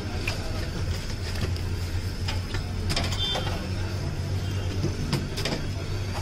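Busy street-food stall background: a steady low hum under scattered short clicks and knocks.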